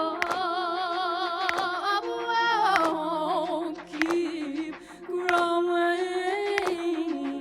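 Electronic soul music played live: a woman singing long held notes with a wavering vibrato over a sustained synth backing and a sparse beat, the voice dropping away briefly in the middle.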